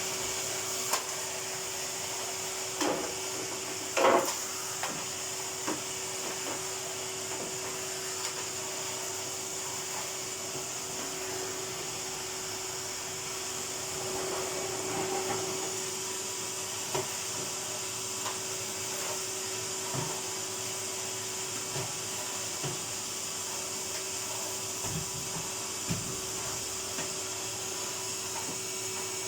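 Vacuum cleaner running steadily with a constant hum and hiss. Occasional knocks and bumps come as it is pushed around, the loudest two about three and four seconds in.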